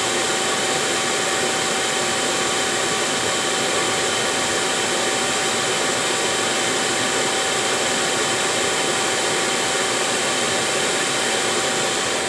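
Chinese diesel air heater running: a steady rush from its combustion fan and burner, with a constant whine on top. Its burn chamber and atomizer screens are carbon-clogged from burning used motor oil, which the owner blames for its slow warm-up and its code 8/10 errors.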